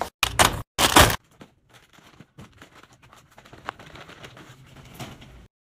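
Plastic candy bags crinkling as they are handled, with two loud bursts in the first second, then fainter rustling and crinkling of packaging being handled. The sound cuts off suddenly near the end.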